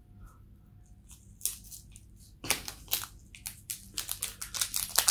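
Small paper seasoning sachet being torn and shaken over the pizza: a run of quick crinkling, tearing rustles that starts about halfway through and grows denser toward the end.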